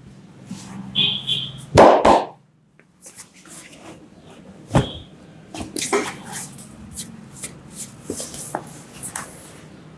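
A barber's hands working over a customer during a head and back massage: irregular slaps, pats and rubs on skin and cloth, the loudest about two seconds in.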